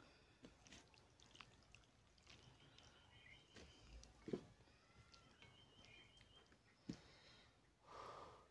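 Faint sounds of fingers mixing rice and curry on a steel plate: soft moist squishes and small clicks, with one sharper tap about four seconds in and another near seven seconds. A short, louder sound comes near the end as the handful reaches the mouth.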